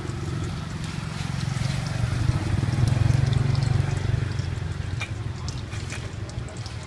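A low engine rumble that swells to a peak about three seconds in and then fades away, as of a vehicle going by. Under it is a faint liquid simmer from the bowl on the portable gas stove, with a few light clicks.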